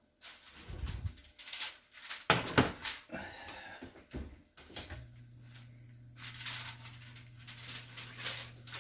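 Aluminium foil crinkling and rustling as it is pulled off a baking dish, with the clunk of the dish being handled. A steady low hum starts about five seconds in.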